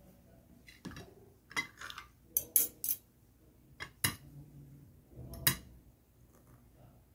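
Metal spoon and fork clinking and scraping against a plate while eating, a handful of short, sharp clinks at irregular intervals, the loudest about two and a half and five and a half seconds in.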